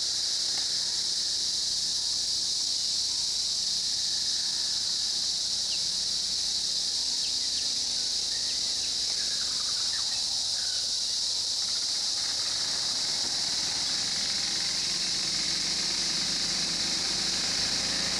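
Steady, high-pitched chorus of forest insects. From about two-thirds of the way in, a vehicle's engine comes up faintly beneath it.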